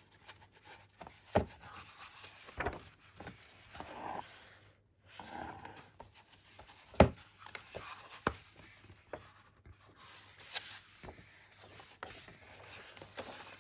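Pages of a glossy, thick-papered photo book being turned and handled: soft rubbing and rustling of paper with a few sharp taps, the loudest about seven seconds in.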